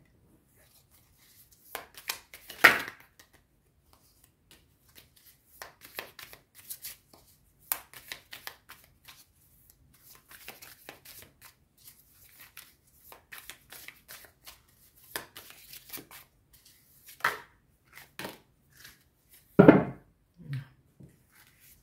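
A deck of round tarot cards being shuffled and handled, with cards laid down on a cloth: scattered rustles, flicks and light taps, a sharper click about three seconds in and a louder thump near the end.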